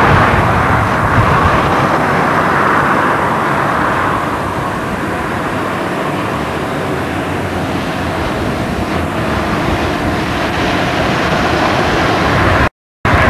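Steady roar of passing road traffic on a city street, louder for the first few seconds and then settling to a steady level. The sound cuts out for a moment near the end.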